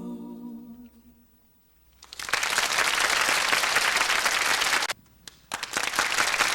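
The closing sung chord fades out, then after a short silence an audience's applause breaks out about two seconds in, cuts out abruptly for about half a second near the five-second mark, and picks up again. It is heard as an FM radio broadcast recorded onto cassette tape.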